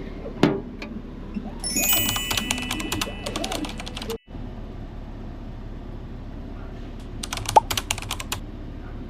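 Two runs of rapid light clicking with short metallic rings, from small hard objects being handled: a longer run in the first half and a shorter one near the end.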